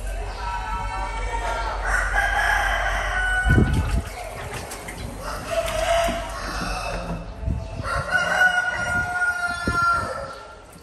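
Chickens calling in a series of long, drawn-out calls, with a few dull thumps in between.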